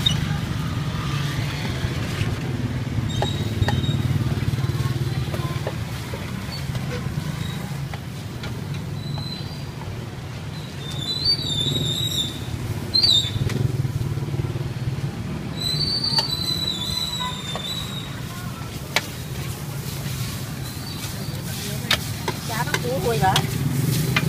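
Busy street-market ambience: indistinct voices over a steady low motor hum, with scattered clicks and a few high chirps towards the middle.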